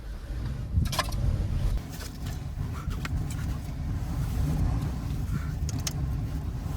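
Low, steady rumble of blizzard wind buffeting the microphone, with a few brief sharp clicks.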